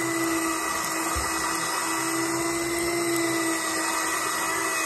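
Electric fishing reel's motor whining steadily as it winds line in.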